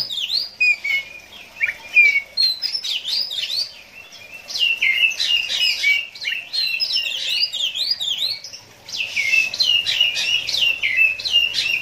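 Oriental magpie-robin singing a fast, varied song of quick whistled notes, sweeping up and down, with brief pauses about four and eight and a half seconds in.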